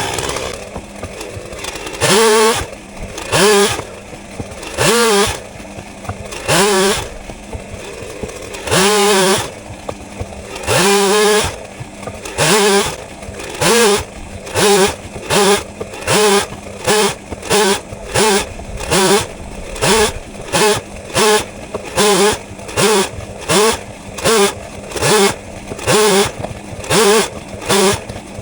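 Two-stroke chainsaw coming off full throttle to idle, then blipped in short revs over and over: a few seconds apart at first, then about once a second.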